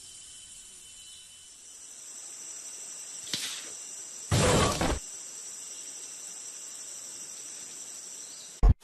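A steady high insect buzz, like cicadas in forest. About four and a half seconds in, a loud crash of about half a second comes as a person falls to the floor. A brief loud hit follows near the end.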